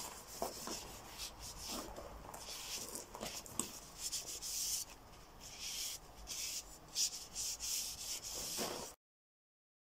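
A cloth rubbed up and down a steel crowbar forged from a car spring: a string of short hissing wiping strokes. The sound cuts off suddenly near the end.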